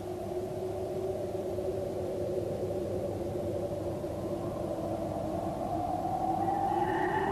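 Sustained drone of the opening soundtrack: a few held tones drifting slowly in pitch, growing steadily louder, with the pitch starting to rise near the end.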